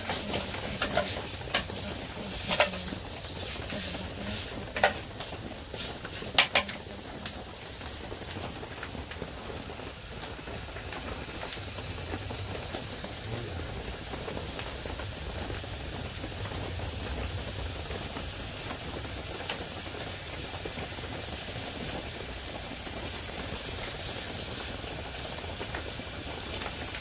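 Diced steak and kielbasa sizzling in a metal pot over an open wood fire, a steady hiss. A few sharp clicks sound in the first several seconds.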